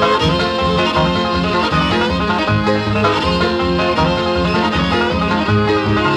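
Background music: an upbeat instrumental with plucked strings in a bluegrass style and a steady beat.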